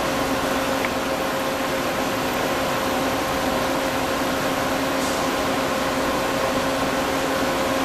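Friction stir welding machine running steadily: a constant mechanical hum with a steady tone over an even, fan-like noise.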